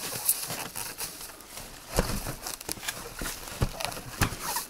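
Scattered knocks and crackles of roofing felt being handled on a hut roof, with a few sharper knocks about two seconds in and again near the end.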